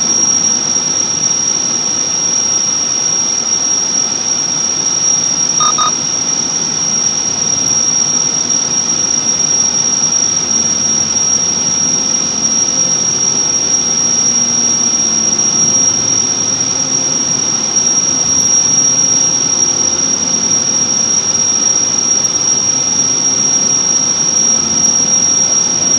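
Steady road and engine noise inside the cabin of a moving car, with a constant high-pitched whine through it. There is a brief faint double beep about six seconds in.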